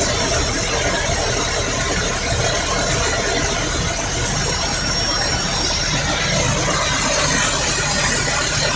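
A vehicle engine running steadily under a continuous rumble and hiss.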